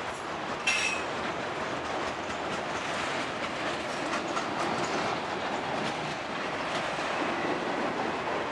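Freight train of auto-rack cars rolling past at speed, a steady clatter and rumble of steel wheels on the rails, with one brief sharp metallic noise under a second in.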